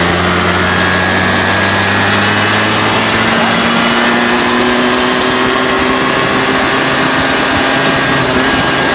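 Small motorbike engine running steadily under way, its pitch creeping slightly higher from about three seconds in, with wind rushing over the microphone.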